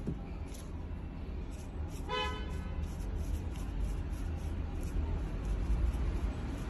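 A single short horn toot about two seconds in, one flat note, over a steady low rumble.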